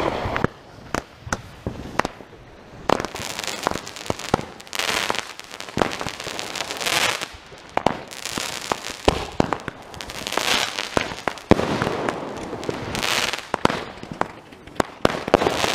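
Consumer fireworks set off in a row, one after another: many sharp bangs and cracks, with noisy rushing bursts every couple of seconds.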